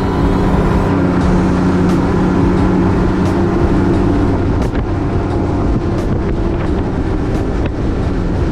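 A boat's outboard motor running steadily under way, with rushing water and wind noise.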